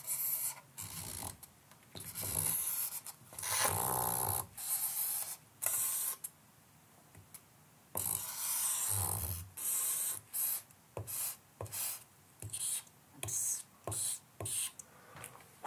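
A stick of charcoal scratching and rubbing across a sheet of paper in many short, uneven strokes with brief pauses between them.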